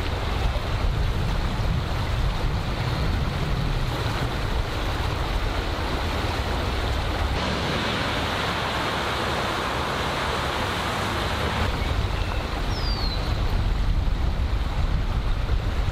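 Wind buffeting the microphone as a steady low rumble. Through the middle, for about four seconds, a Dodge pickup truck drives through water flowing over the road, its tyres throwing up a spraying hiss.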